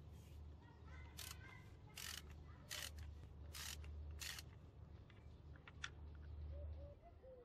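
Socket ratchet clicking in five short runs, a little under a second apart, as it loosens the PCV valve.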